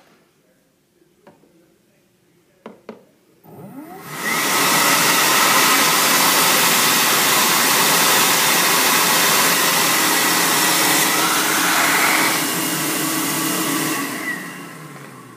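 Hands-in slot-style bathroom hand dryer switching on about three and a half seconds in, its motor spinning up within a second to a loud, steady rush of air that reads 95 decibels on a sound meter held in the slot. It runs for about ten seconds, then shuts off and winds down with a falling whine. A few faint clicks come before it starts.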